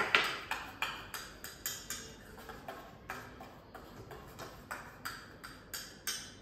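A metal utensil stirring in a stainless steel pot, knocking against its sides in a steady run of light metallic clicks, about three a second.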